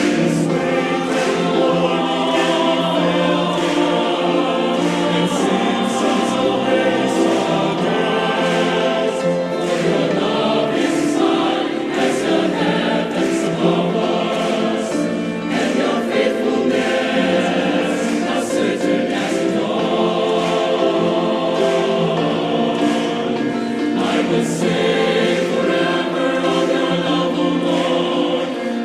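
A choir singing in several parts, with long held chords.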